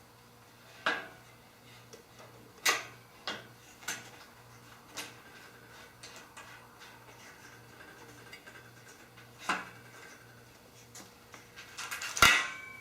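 Aluminium extrusion parts and connector plates clinking and knocking as they are handled and fitted: a few separate sharp knocks, then a quick run of clicks near the end finishing in the loudest knock.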